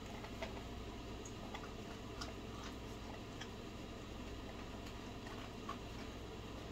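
Quiet room tone: a steady low hum with a few faint, scattered small clicks and ticks.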